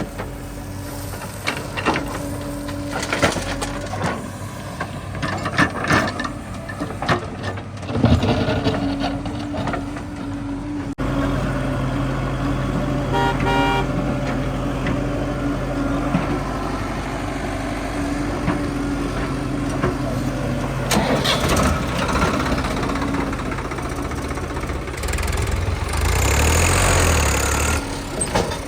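Heavy vehicle engine running steadily. In the first ten seconds there are several sharp knocks and some clatter, and the sound cuts abruptly about eleven seconds in. A brief run of short repeated tones comes a couple of seconds later, and the engine grows louder near the end.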